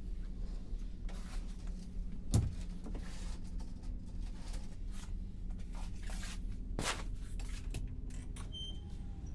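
Steady low drone of a car ferry's engines and machinery heard inside a cabin, with a dull thump about two seconds in and a sharp knock near the end.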